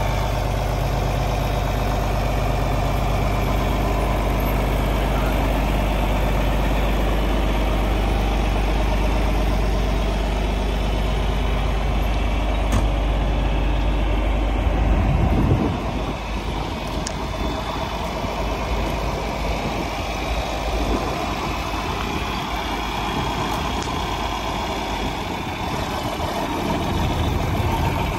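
John Deere 4430 tractor's six-cylinder diesel engine idling steadily. Its low rumble drops off about halfway through.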